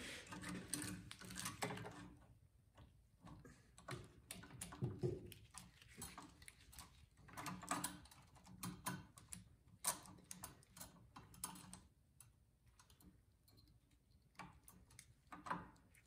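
Faint, scattered metal clicks, taps and rattles from hand tools and small carburetor parts as a carburetor and its throttle linkage are fitted and tightened onto a snowblower engine.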